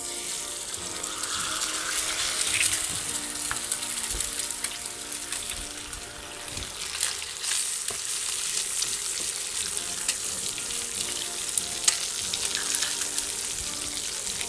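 An egg frying in a hot cast-iron skillet, sizzling steadily with scattered crackles and pops; the sizzle builds over the first couple of seconds.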